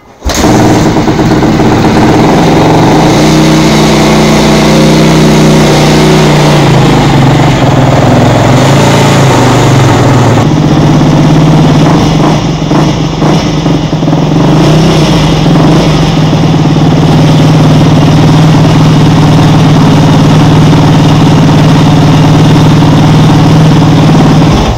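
2012 Kawasaki KX450F's single-cylinder four-stroke engine starting at once and running smoothly, its pitch shifting during the first ten seconds and then holding steady, before cutting off suddenly. It is run to bring the freshly changed oil up to temperature for a level check.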